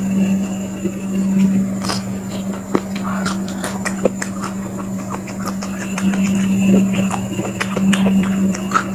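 Close-up chewing of crispy battered fried octopus tentacles: irregular crunches and mouth clicks over a steady low hum.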